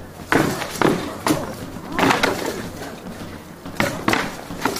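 Swords clashing against each other and against shields in a reenactment fight: an irregular run of sharp strikes, several coming in quick pairs.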